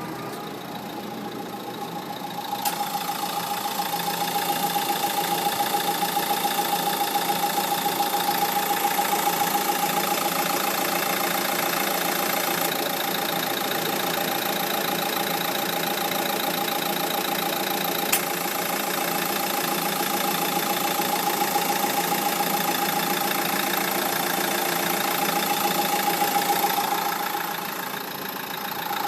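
Dacia Duster idling with the air conditioning running, with a steady whine and a hiss that comes in with a click about three seconds in and falls away near the end. The hiss is the strange noise the owner notices with the air conditioning on, of unknown cause. A single sharp click sounds about two-thirds of the way through.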